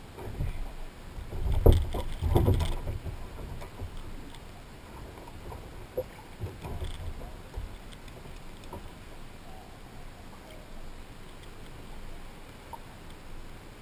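Heavy bumps and knocks on a plastic sit-on-top kayak as a man and the dog on his lap shift their weight, loudest in the first three seconds. After that come only occasional small knocks over a steady hiss.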